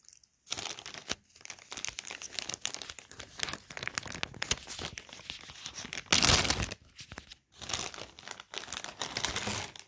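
Clear plastic Ziploc bag crinkling as hands handle it and pull it open, in irregular crackles with a louder burst a little after six seconds in.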